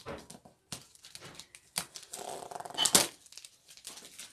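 Scissors snipping and tape being cut and torn off a wrapped travel bag: irregular clicks and crackles, with a longer tearing rasp about two seconds in that peaks sharply near the three-second mark.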